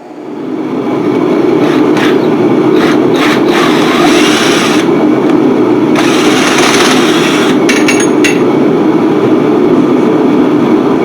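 A machine's motor starting up, building over about a second, then running steadily, with uneven hissing or scraping passages over the top.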